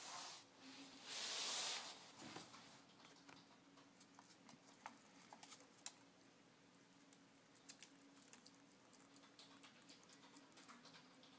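A ferret licking and nibbling at a block of ice in a ceramic bowl: faint scattered clicks and taps. There is a short, louder rustling hiss about a second in.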